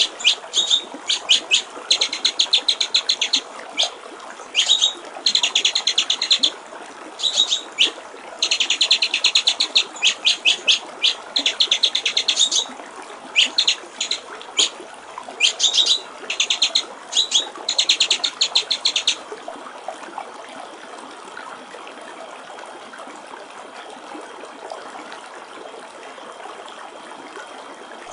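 White-rumped shama singing in quick bursts of rapidly repeated high notes, over a steady trickle of water. The song stops about two-thirds of the way through, leaving only the water.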